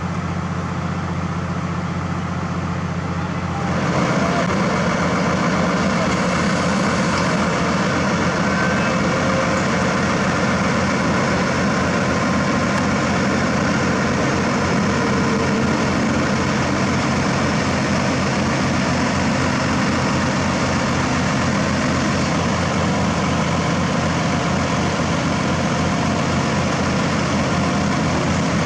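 Heavy truck's diesel engine running steadily with an even, low pulsing beat, powering the self-loader's hydraulic legs as they raise the truck's front end. It gets louder about four seconds in and then holds steady.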